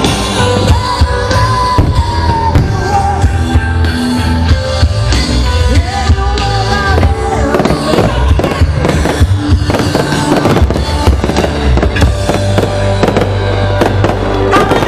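Fireworks going off in rapid, irregular bangs and crackles, over loud music with a singing voice and heavy bass.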